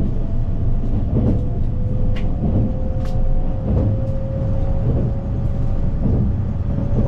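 Narita Express electric train running, heard from inside the carriage: a steady low rumble with a constant motor whine and scattered light clicks and knocks from the wheels and the car.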